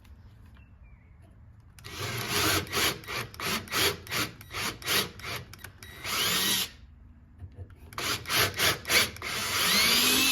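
A hand tool worked in quick back-and-forth strokes, about two to three a second, in two runs with a pause between. Each run ends in a longer steady stroke, with a faint squeal here and there.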